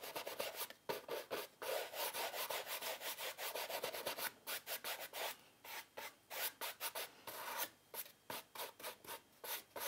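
Paintbrush bristles rubbing across a textured cotton canvas in short, repeated back-and-forth strokes, a dry scratchy hiss a few times a second, as thinned paint is lightly brushed on.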